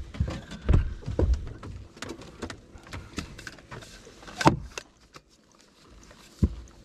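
A string of irregular knocks and thumps, the loudest about four and a half seconds in, with a quieter spell near the end.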